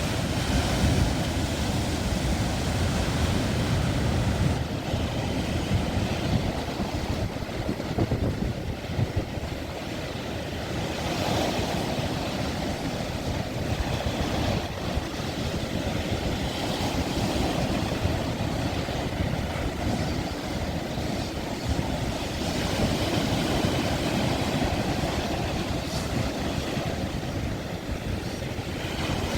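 Ocean surf breaking and washing ashore in a continuous, swelling roar of waves, with wind rumbling on the microphone, heaviest in the first few seconds.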